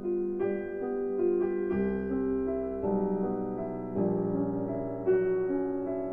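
Slow background piano music: a new chord about every second, each left to ring and fade.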